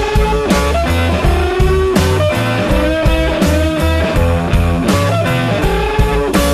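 Instrumental rock music: a guitar lead with bending notes over bass and drums, with no singing.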